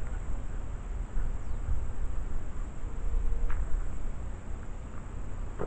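Outdoor ambience: wind rumbling unevenly on the camera's microphone, with a faint steady chirring of insects.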